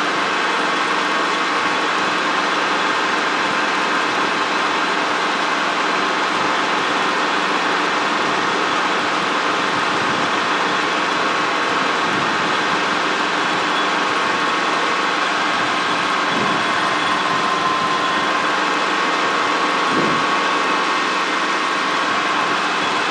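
Helicopter in cruise flight heard from inside the cockpit: a steady, even drone of engine and rotor with a constant whine.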